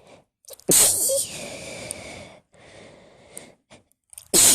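A woman sneezing in a fit: one loud sneeze about a second in, a breath, then the next sneeze starting near the end.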